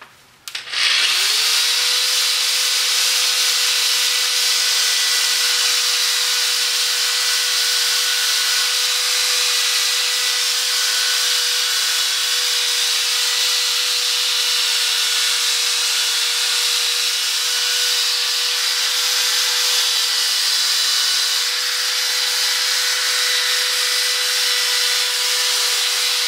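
Drill spinning a gold P500 sanding disc against a plastic headlight lens, sanding off the remaining yellowing and defects. It speeds up about a second in, runs at a steady whine throughout, and winds down right at the end.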